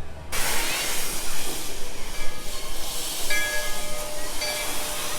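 Steam locomotive hissing, a loud steady hiss of escaping steam that starts abruptly just after the start.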